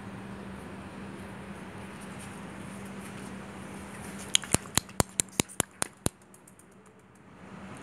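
Steady background noise with a faint low hum, then about four seconds in a quick run of about nine sharp clicks, roughly five a second, over less than two seconds.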